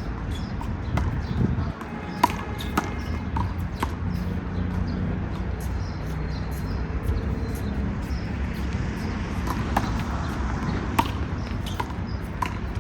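A small rubber handball in a one-wall rally, slapped by hand and smacking off the wall and pavement: a string of sharp, irregularly spaced smacks over a low steady rumble.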